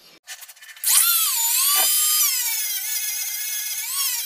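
Dremel rotary tool running at high speed and sanding the oxide off a bare aluminium crossbow frame: a loud, high whine that starts about a second in after a few short stutters, its pitch dipping and recovering as the bit bears on the metal.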